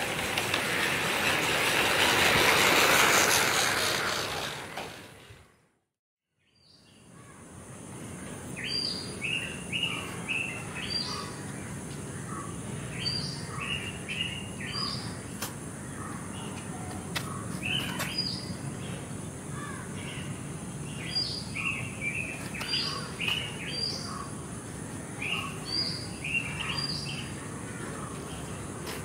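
A loud rushing noise swells and fades out over the first five seconds. After a moment of silence, birds chirp again and again in short calls over a steady outdoor background with a faint high whine.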